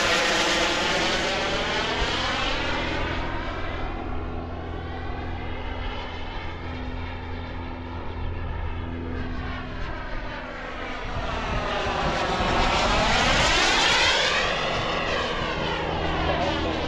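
Kingtech K102 turbine of a model MB-339 jet in flight, passing by twice: the jet noise swells near the start and again about 13 seconds in, fading between passes.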